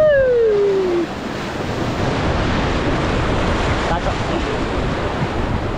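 Rushing whitewater of a river rapid, a loud steady roar of churning water. In the first second a person lets out one long shout that rises and then falls away.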